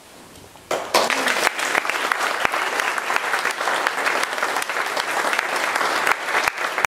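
Audience applauding: dense clapping starts under a second in, after a brief hush, and cuts off suddenly near the end.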